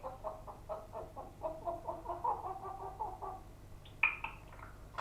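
A pet bird making a rapid run of short clucking notes, about five a second, for some three seconds, then a couple of higher, sharper calls about four seconds in.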